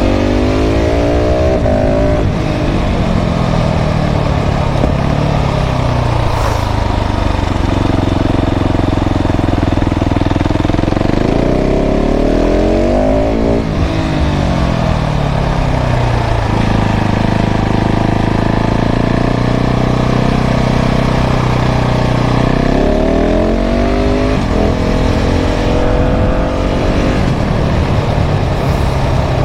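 KTM 690 SMC R's single-cylinder engine through a full LeoVince exhaust, pulling hard through the gears with the revs climbing and dropping at each shift. Around the middle the revs fall away on the overrun, hold steady for several seconds, then climb again through quick upshifts near the end.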